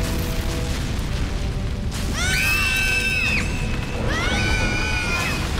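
Cartoon earthquake in a cave: a deep continuous rumble with falling, shattering stalactites, under orchestral film music. Two high-pitched cries from the young dinosaurs come about two and four seconds in.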